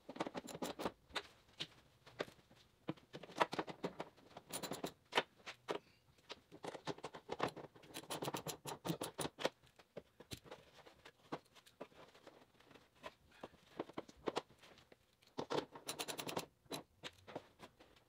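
Clicking, scraping and rattling from hands and a tool working on parts and wiring under a car's open trunk lid, coming in several bursts of quick clicks.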